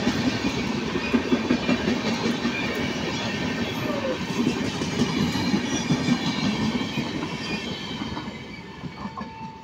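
Freight train running past at speed, with a dense, rapid clatter of wheels over the rails. The sound fades away over the last two or three seconds as the train recedes.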